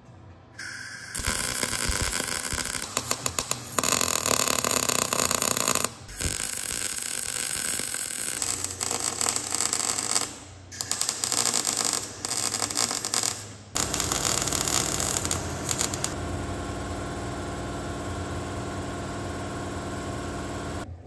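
MIG welder arc crackling and spitting in several runs of a few seconds each, with short breaks between them, as thin car-body sheet metal is welded. Near the end it gives way to a steadier, even sound.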